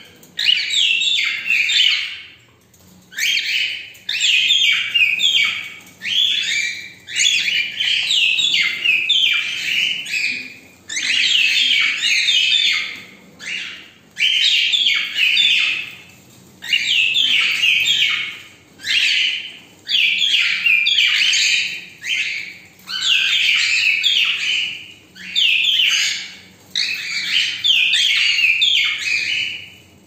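Cockatiels chirping and chattering in fast, warbling bursts of a second or two, with short pauses between bursts.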